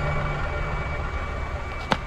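Suspense drone: a steady low rumble with a thin, high held tone over it, which stops just before a sharp click near the end.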